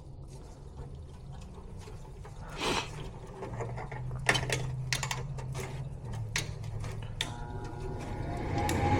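Sharp clicks and small rattles of hands handling furnace wiring and a Molex plug on the control board, over a low steady hum. Near the end a steadier mechanical running sound comes in and grows louder.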